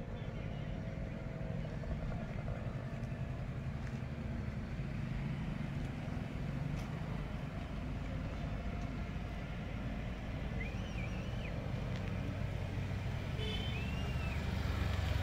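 A vehicle engine idling: a steady low rumble that grows slightly louder near the end.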